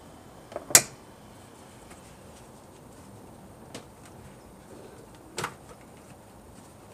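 A few short, sharp clacks and knocks of hand tools and plastic intake parts during work in a car's engine bay, as the air intake elbow is removed. The loudest clack comes just under a second in, with a faint knock a little before the middle and another clack later on.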